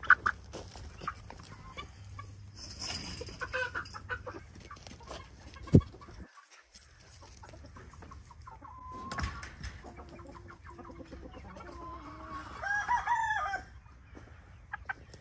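Backyard chickens clucking, with a rooster crowing. A single sharp knock sounds a little before the middle, and a louder run of calls comes near the end.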